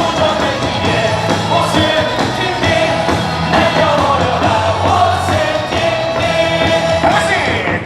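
Baseball cheer song played loud over stadium speakers, with a crowd of fans singing along.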